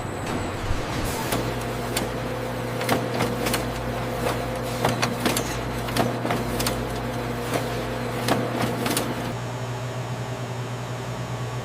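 Factory production-line machinery running with a steady hum, with irregular clicks and clanks over it. The clatter stops about nine seconds in, leaving only the hum.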